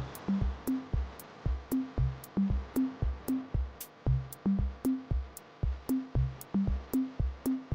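Background music: an electronic drum-machine beat with a steady kick drum, hi-hat ticks and a short repeating bass line.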